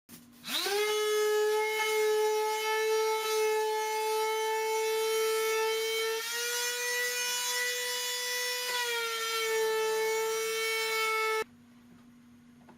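Electric sander spinning up with a quick rising whine, then running steadily while sanding wooden panel edges flat. Its pitch rises a little for a few seconds in the middle, then drops back, and the sound cuts off suddenly near the end.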